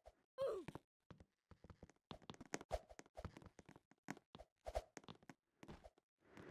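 Irregular light taps and clicks, a few every second, with a short falling pitched squeak about half a second in.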